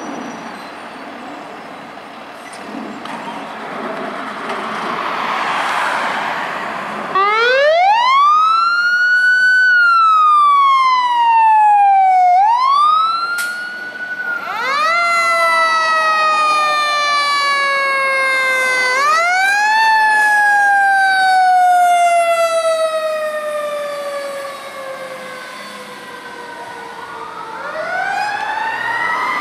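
Fire engine siren on an emergency run, from a 2018 Seagrave Marauder II pumper. After several seconds of vehicle noise it winds up sharply about seven seconds in, then rises and falls in long wails that sink slowly in pitch, overlapping at times. It starts another rise near the end.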